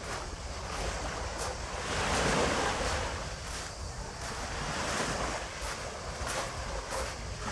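Small, gentle waves washing onto a coarse-sand and pebble shore; the wash swells about two seconds in and again about five seconds in. Wind rumbles on the microphone underneath.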